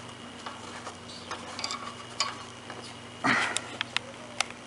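Scattered light clicks and taps of a combination wrench on an oxygen-sensor socket as the new sensor is snugged down in a cramped engine bay, with one louder clatter about three seconds in, over a faint steady hum.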